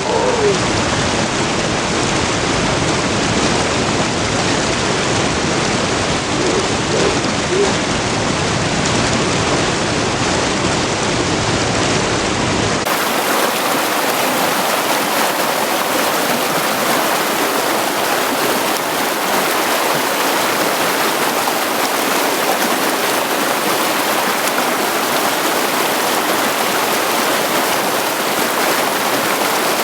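Mountain stream rushing steadily over rocks. About 13 seconds in the sound changes abruptly: the low rumble drops away and the rush turns brighter and hissier.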